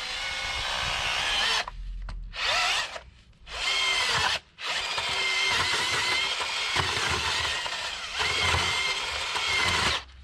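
Power drill turning an auger bit into heavy, sticky clay soil, run in four bursts: a short one, two brief ones, then a long run of about five seconds. The motor's whine dips and rises in pitch as the bit loads up in the clay.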